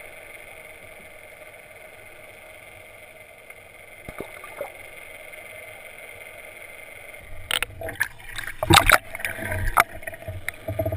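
Steady underwater hum and hiss, then from about seven seconds in loud, irregular splashing and sloshing as water churns around the camera at the surface.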